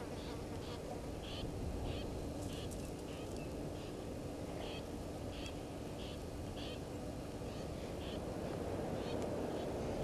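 A bird calling in short high chirps, repeated irregularly about once or twice a second, over steady low background noise.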